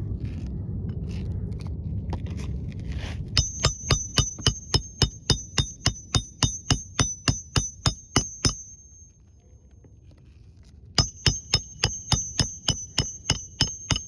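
Low rumbling and scraping for about three seconds, then a hammer striking metal in rapid ringing taps, about four a second for some five seconds, and after a short pause a second run of taps near the end, during a roof shingle repair.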